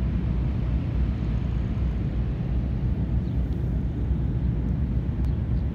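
Steady low rumble of wind buffeting a phone's microphone.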